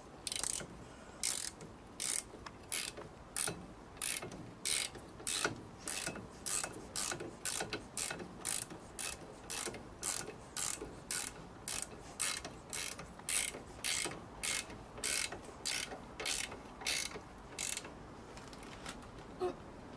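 Ratchet spanner clicking in a steady rhythm, about one and a half strokes a second, as it winds a brake caliper bolt tight; the clicking stops about 18 seconds in.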